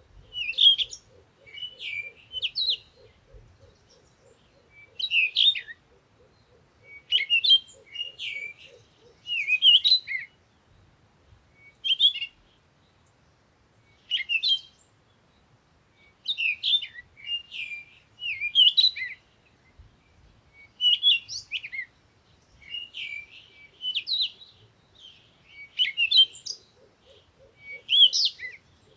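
A songbird singing short, high warbling phrases, one every second or two with brief pauses between. A faint, low, rapid trill runs underneath for the first several seconds and returns near the end.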